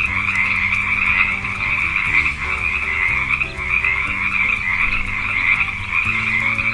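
A chorus of frogs calling continuously, a dense, high chattering croak with no break.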